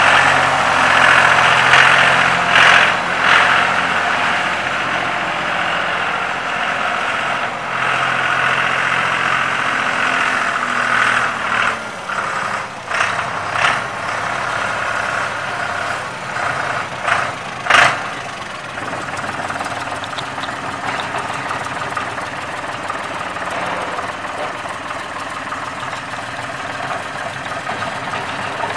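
John Deere 5220 tractor's three-cylinder diesel engine running. It is louder and busier for about the first eighteen seconds, with several sharp knocks, then settles into a quieter, steady idle.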